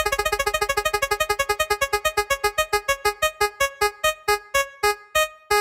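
One electronic keyboard-like note repeated over and over at the same pitch. It starts as a fast stutter and slows steadily until the notes are about half a second apart.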